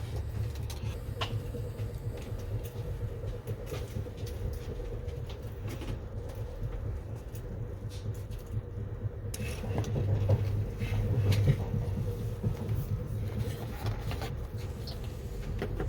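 Amtrak Empire Builder passenger train rolling along the track: a steady low rumble with scattered clicks and knocks from the wheels on the rails, growing louder about ten seconds in.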